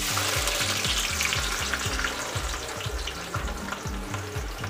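Sliced onions sizzling as they hit hot oil in a kadhai for deep-frying. The hiss starts suddenly and eases off slowly.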